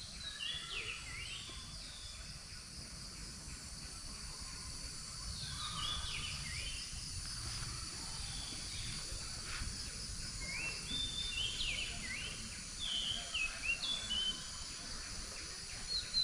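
Birds calling in short, slurred whistled notes that come in several bursts, over a steady high insect buzz.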